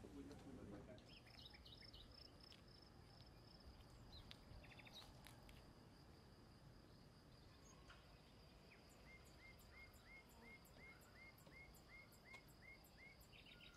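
Faint outdoor ambience: a steady high insect trill with birds chirping, including a run of about a dozen short, evenly spaced chirps, roughly three a second, in the second half.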